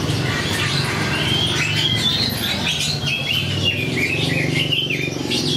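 Many caged market birds chirping and twittering at once, a dense stream of short overlapping calls, over a low background murmur.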